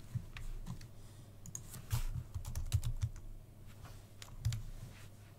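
Typing on a computer keyboard: scattered key clicks, with a quicker run of keystrokes about two to three seconds in.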